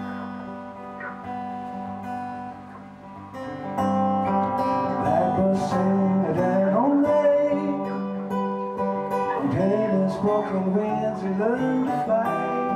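Acoustic guitar played live. A man starts singing over it about four seconds in, and the music grows louder there.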